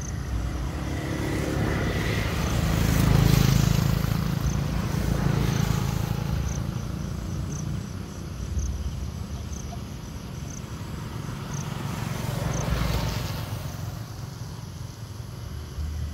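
Road traffic passing: several vehicles swell and fade over a steady low rumble, the loudest about three seconds in and another around twelve seconds in.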